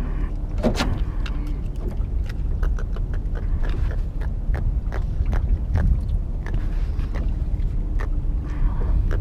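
Wind buffeting the microphone as a steady low rumble, with a scattering of sharp clicks and knocks from handling a freshly caught small jack and the fishing tackle aboard a boat. A faint steady hum comes and goes.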